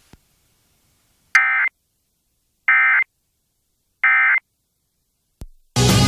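Emergency Alert System end-of-message signal: three short, identical bursts of warbling digital data tones, about a second and a half apart, with silence between them. Near the end a click, then music starts.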